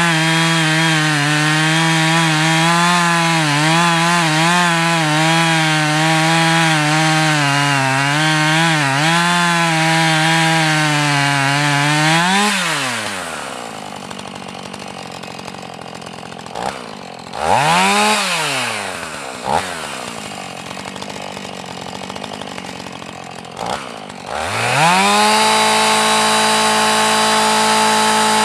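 Husqvarna 450 chainsaw's 50 cc two-stroke engine at full throttle cutting through a log, its pitch wavering under the load. About twelve seconds in it drops to idle, with a few brief throttle blips, then near the end revs up to a steady, higher pitch with the chain running free.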